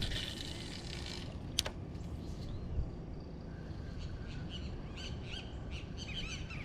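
Birds chirping in a run of short, quick calls during the last two and a half seconds, over a low steady outdoor rumble. A single sharp click comes about one and a half seconds in.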